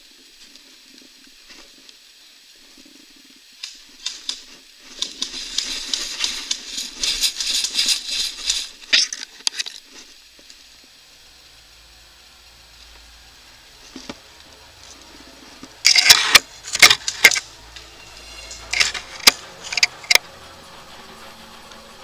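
Rustling and crackling of dry leaf litter and clothing or gear close by, in two spells. The second spell holds several sharp, loud cracks.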